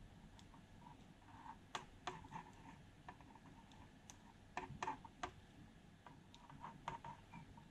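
Faint, scattered small clicks and taps from hand work: the nozzle of a tube of heatsink compound touching the metal-cased bridge rectifiers on a power supply board as compound is dabbed on. The loudest clicks come in a quick cluster about halfway through.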